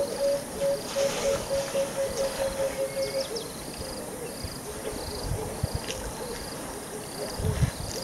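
Insects chirping in short high trills that repeat steadily. A lower, rapidly pulsed call runs through the first three seconds, and a few low thumps come near the end.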